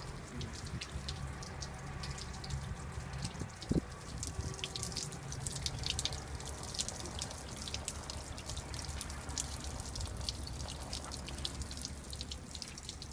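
Dirty water from a flexitank bag dripping and splashing in many quick, irregular drops, over a low steady hum. One thump a little under four seconds in.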